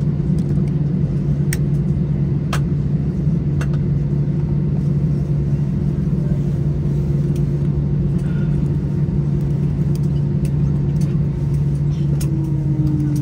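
Airliner cabin noise on the ground after landing: a steady engine hum and rumble, with a few sharp rattles and clicks. Near the end a tone slides down in pitch.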